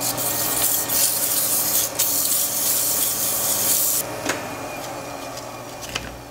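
180-grit sandpaper pressed against the end of a wood blank spinning on a lathe, a loud hiss that eases off about four seconds in, as the small nub left from the cut is sanded away. The lathe's steady motor hum runs underneath.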